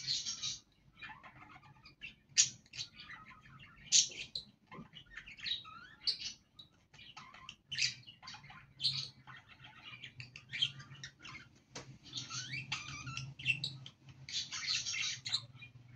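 Pet budgerigars chattering: a continuous run of short, high chirps and warbling calls, over a faint steady low hum.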